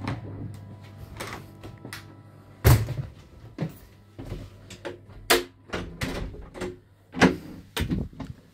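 Handles and latches of a Class 323 train's interior door being worked: a run of clicks, rattles and clunks, with a heavy thud about three seconds in and more clunks later. A low steady hum drops away after the first thud.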